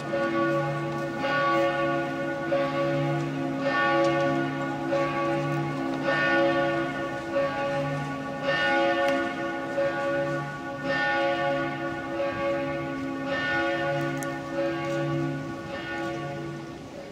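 Church bells pealing: overlapping bell strokes about every second and a quarter, over the lingering deep hum of the bells.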